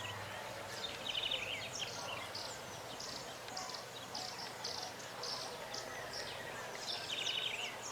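Faint outdoor background with many short, high bird chirps and calls.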